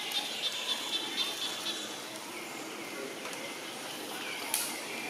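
Outdoor background of insects buzzing, pulsing for the first couple of seconds, with a short falling chirp and a sharp tick about four and a half seconds in.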